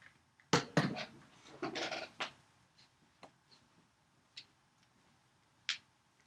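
Handling noise as recording gear is moved about: a cluster of knocks and rubbing in the first two seconds or so, then a few single clicks, the last and sharpest near the end.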